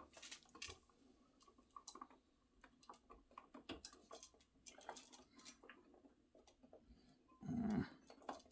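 Faint, scattered clicks and scrapes of a screwdriver and wires being worked on a wall light switch's ground terminal. A brief murmur of a voice comes near the end.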